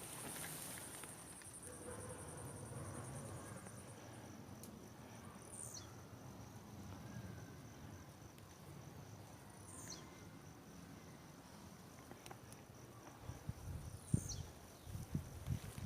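Faint steady high-pitched insect trilling outdoors, with a short falling high note three times about four seconds apart, and a few soft low thumps near the end.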